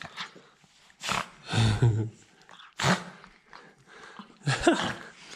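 Small fluffy white dog vocalizing in several short bursts while being petted.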